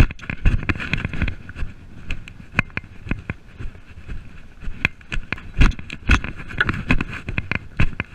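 A horse moving briskly over grass, heard from the saddle: hoofbeats thudding and the saddle and bridle rattling with each stride, as a run of irregular knocks, several a second.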